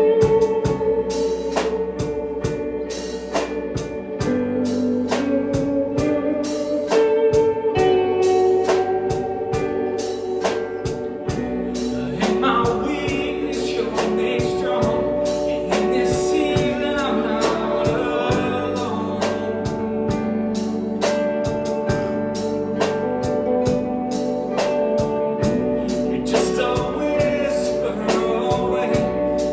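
Live worship band playing a slow gospel song on keyboard, guitar and drum kit with a steady beat. Voices come in singing about twelve seconds in and again near the end.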